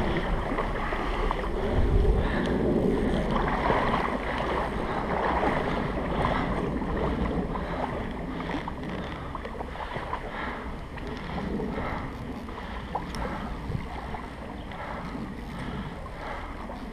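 Shallow stream water running and splashing around the wading angler, with wind buffeting the microphone in the first couple of seconds; the sound eases off gradually.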